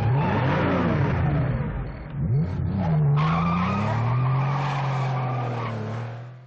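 Porsche 911 Targa's air-cooled flat-six engine revving hard as the car pulls away, with tyre squeal. The revs dip about two seconds in, climb steadily again from about three seconds, and the sound fades out at the very end.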